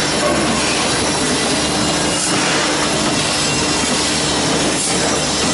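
Four-side-sealing vertical packaging machine running: a loud, steady mechanical noise with a low hum under it.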